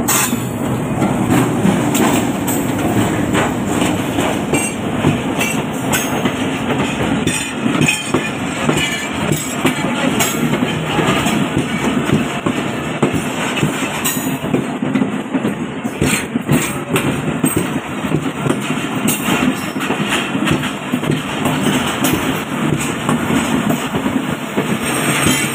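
Passenger train passing close by: a diesel locomotive, then a long string of coaches, with a steady rumble and the wheels clattering repeatedly over the rail joints.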